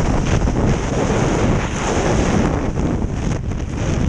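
Skydiver's freefall airflow rushing loudly over the camera's microphone. It is a steady rushing noise that wavers a little in strength.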